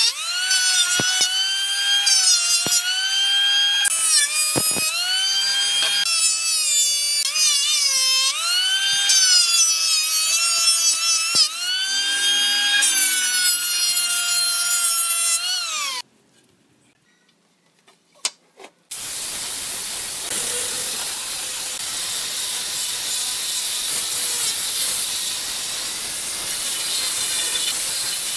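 Electric power tool working wood. Its motor whine repeatedly dips in pitch as it bites under load and climbs back, then stops about sixteen seconds in. After a short pause with a few clicks, a steady hissing noise follows.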